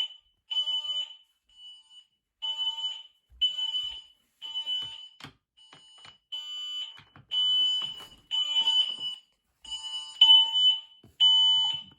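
Household smoke alarms, interconnected and set off by a test, sounding a fire alarm: a shrill beep repeating about once a second, with a few faint knocks in between. The Ring Alarm system has registered it as a fire alarm.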